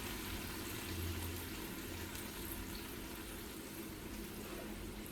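Faint, steady sizzling of canned diced tomatoes with brown sugar in a hot frying pan.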